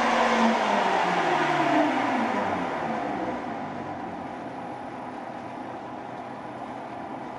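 Grizzly G0602 lathe's motor and spindle slowing as the speed knob is turned down from about 850 to about 150 RPM: a falling whine over the first three seconds, then the lathe keeps running steadily and quieter at low speed.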